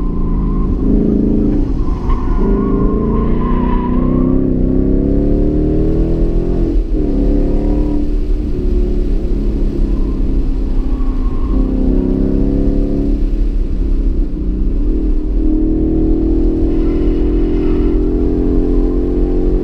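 2015 Mustang GT's 5.0-litre V8 heard from inside the cabin under hard driving, its pitch climbing under throttle and falling back sharply several times. A thin, wavering tire squeal comes in through the corners.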